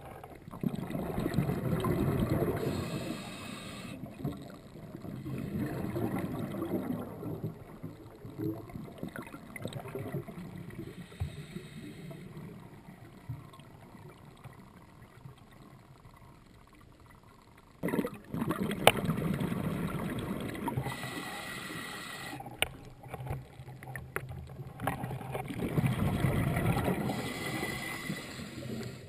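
Scuba diver's regulator breathing underwater: exhaled bubbles gurgling out in surges of two to four seconds, with a longer pause about midway.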